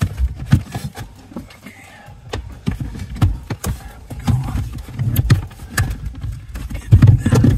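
Irregular knocks, clunks and rattles of a BMW E36 Touring front seat frame being shifted by hand on its floor rails and mounting studs, with a heavier cluster of thuds near the end.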